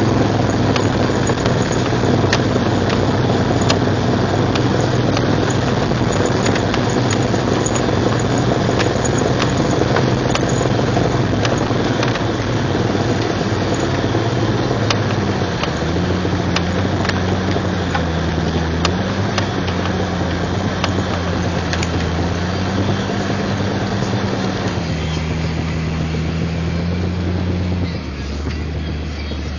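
Lifted 1999 Jeep Cherokee XJ running in four-wheel drive, engine and drivetrain with a grinding from the front axle that shows up only in 4WD and has not been cured by new axle U-joints, a rebuilt Dana 30 front differential and a rebuilt front driveshaft. The low engine hum shifts in pitch a few times in the second half.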